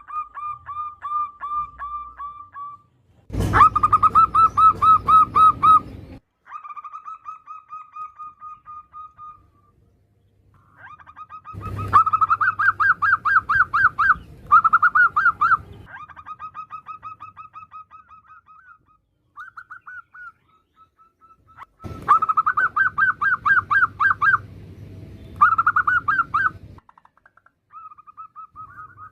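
Female zebra doves (perkutut) giving chattering calls: bouts of fast, evenly repeated notes, each lasting a few seconds, with short gaps between them. Some bouts are louder than others, the loudest starting about three and a half, twelve and twenty-two seconds in.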